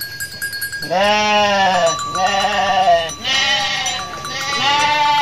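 Sheep bleating: about a second in, four long bleats follow one after another.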